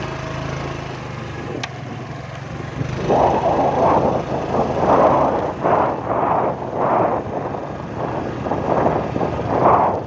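Motorbike engine running at low speed on a rough dirt track. From about three seconds in, a loud rushing noise swells and fades roughly once a second over the engine.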